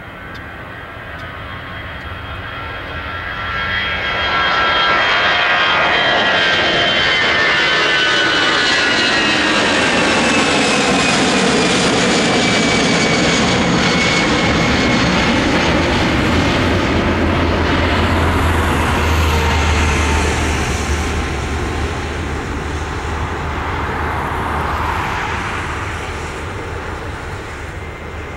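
Airbus A320's twin jet engines at takeoff thrust as the airliner lifts off and climbs out past and over: the engine noise swells loud about four seconds in, its whine gliding down in pitch as the plane goes by, then a deep rumble lingers as it draws away and fades.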